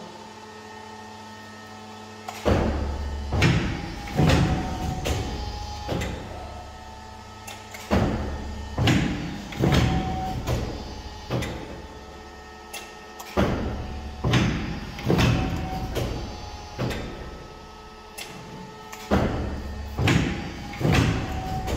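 Fuji 1320-4P paper and board guillotine cutter cycling. There are four runs of about five seconds each, every run a low machine hum with a string of loud clunks and knocks from the clamp, knife and back gauge moving.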